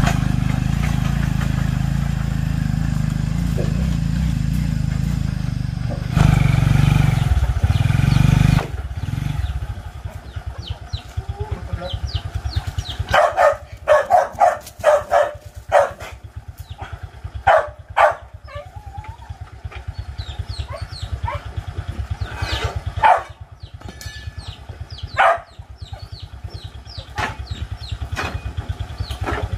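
Small motorbike engine running, louder for a couple of seconds about six seconds in, then dropping to a steady idle with quick firing pulses. Short higher-pitched calls break in over the idle several times.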